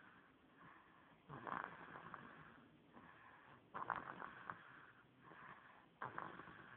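Snoring: three snores about two and a half seconds apart, each starting suddenly and fading over about a second, with softer breaths in between.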